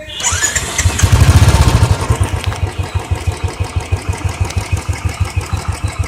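Royal Enfield Electra's single-cylinder four-stroke engine starting, rising briefly about a second in, then settling into its even idle thump through the exhaust. The engine is nearly new, at about 550 km and due for its first service.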